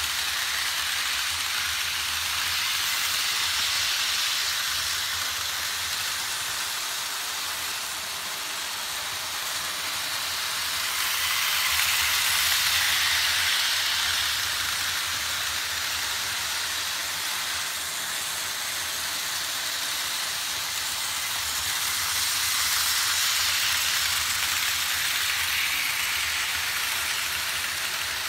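Vintage Märklin HO steam locomotives and metal coaches running on Märklin M-track: the steady rushing of wheels and motors on the pressed-steel track, with a low hum underneath. It swells and fades about every ten seconds as a train passes close.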